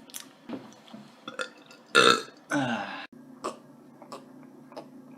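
A man burping loudly about two seconds in, followed right away by a second, longer burp that falls in pitch. A few faint clicks come before and after.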